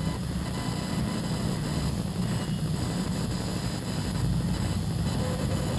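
Steady low background rumble with no speech.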